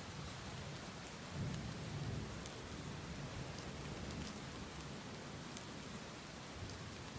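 Steady rain with scattered drops ticking, and a low rumble of thunder swelling about a second and a half in.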